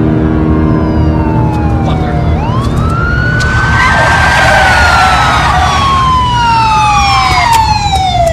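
Police car sirens wailing, several overlapping, each sweeping slowly up and down in pitch over a low rumble.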